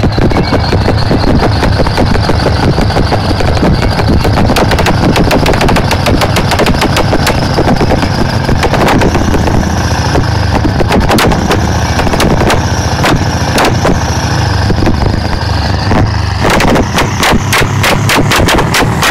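Heavy diesel truck engine running loud through a side-exit exhaust pipe, a low drone under a rapid crackling rattle. About sixteen seconds in the drone drops away and the exhaust gives separate sharp pops, several a second.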